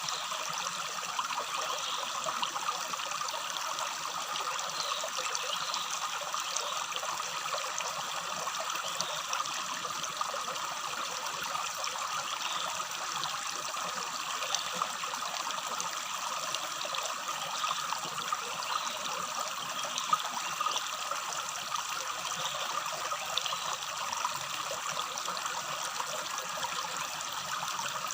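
Small shallow stream babbling steadily over stones.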